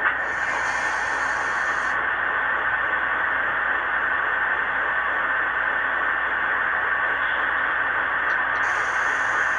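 Model diesel locomotive sound decoders (QSI) playing a steady diesel idle through small onboard speakers, heard as an even, static-like rush, with a higher hiss coming in for a couple of seconds at the start and again near the end.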